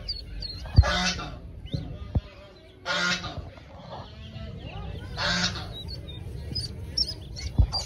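Brooding hen duck giving three harsh, raspy calls about two seconds apart, with ducklings peeping faintly near the end.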